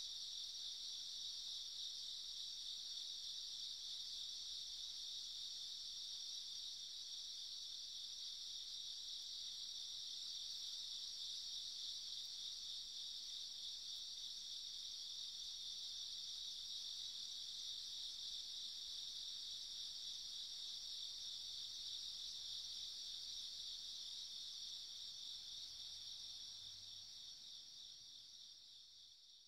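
A steady, high-pitched chorus of crickets chirping without pause, fading out at the end.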